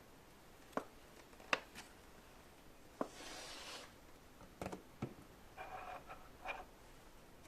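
Handling noises close to the microphone: about six sharp taps and clicks spread out, with a short rustle about three seconds in.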